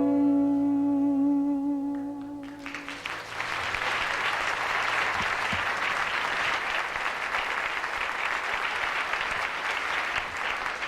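A song ends on a long held sung note over a ringing acoustic guitar chord. About two and a half seconds in, the audience breaks into applause that carries on.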